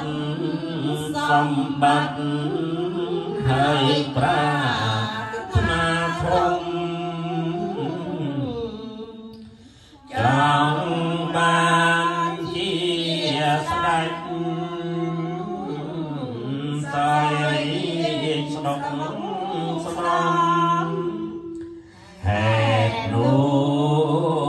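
A group of voices chanting a Buddhist text in unison, in a steady recitation tone, with one voice led over a microphone. The chant runs in long phrases, with a short break for breath about ten seconds in and another near the end.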